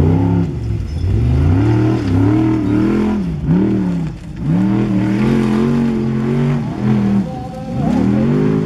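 Lightfoot Formula Offroad buggy's large-displacement, naturally aspirated engine of about 850 hp, revving hard under load on a steep gravel hillclimb. The revs rise and fall over and over, dropping sharply a few times as the throttle comes off and back on.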